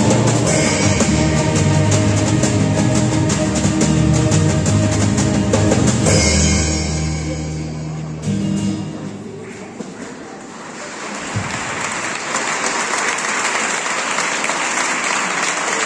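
Choir singing with acoustic guitar accompaniment, ending on a held final chord that dies away about eight seconds in. Applause then starts and builds, with many people clapping.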